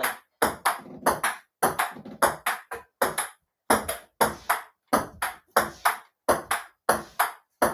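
Table-tennis rally on a mini table: a quick, steady run of sharp clicks as the ball strikes the paddles and bounces on the tabletop, often in close pairs. There is a short break about three seconds in.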